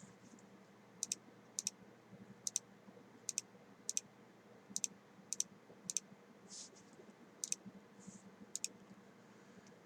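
Faint computer mouse clicks, many in quick pairs, coming every half second to a second.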